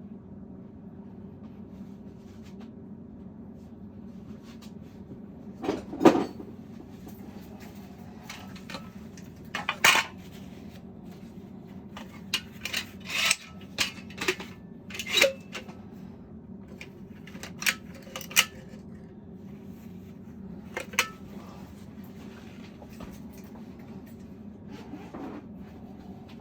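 Scattered clinks and knocks of hard tools or objects being handled, the loudest about six and ten seconds in, over a steady low hum.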